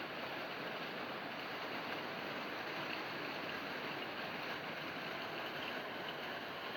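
Steady rain falling, an even hiss of drops with no distinct individual hits.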